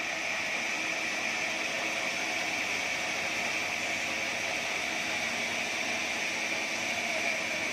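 Sawmill band saw cutting through an acacia log: a steady hissing whine of the blade in the wood, even and unbroken throughout.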